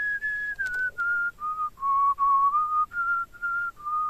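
A person whistling a slow melody of short, separate notes. It starts on its highest note, steps down, climbs back up and dips again near the end. It is the whistle-like melody that overtone-singing exercises bring out of a voice.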